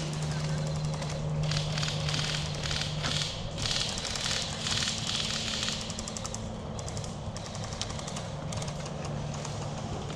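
Airsoft guns firing in rapid crackling bursts, over a steady low hum that fades about a third of the way in.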